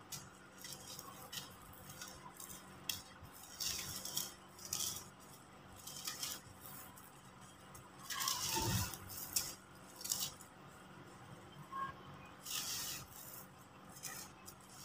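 Dry, crunchy blocks of yellow soil being crushed and crumbled by hand, giving bursts of gritty crackling as lumps break and the dry powder sifts down. The loudest crunch comes a little past halfway.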